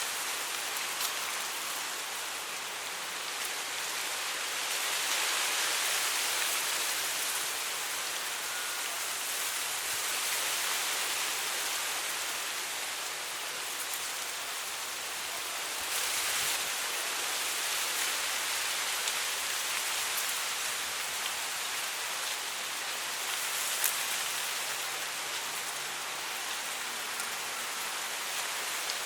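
Soft wind blowing through dry grass: a steady, hissing rustle that swells and eases gently, with a few faint ticks.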